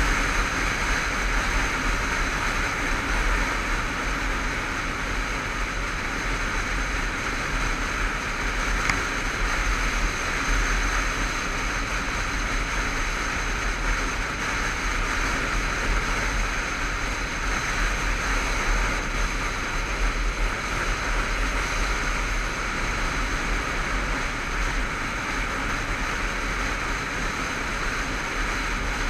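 Steady wind rush over the microphone, with a Honda CBF500 parallel-twin motorcycle engine running at an even cruising speed underneath.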